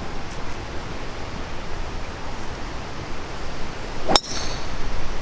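A golf club striking a ball on a tee shot, a single sharp metallic strike about four seconds in with a brief high ring, heard over a steady rushing background noise.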